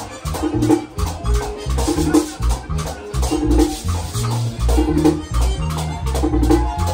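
Live Latin dance band playing, with a güira scraping a steady rhythm over drum and bass lines.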